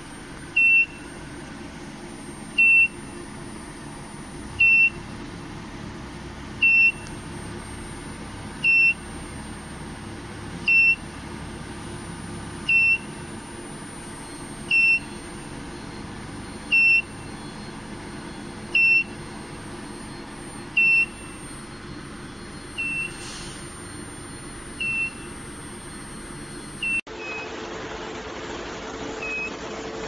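Portable induction preheat heater beeping: a short high beep about every two seconds, over the steady hum of the running air-cooled cabinet.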